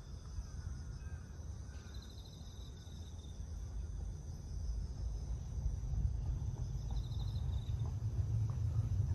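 Outdoor ambience: insects trilling in short high-pitched bursts over a steady high hum, with a low rumble that grows louder over the second half.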